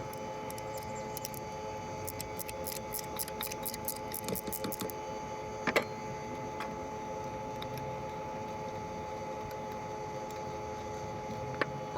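Ratchet and socket clicking in quick runs while spark plugs are unscrewed from a V6, with one sharper metal knock partway through, over a steady background hum.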